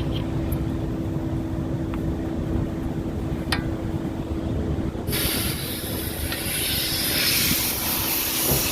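A steady low mechanical hum with a single click, then about five seconds in a loud, steady hiss starts and keeps going.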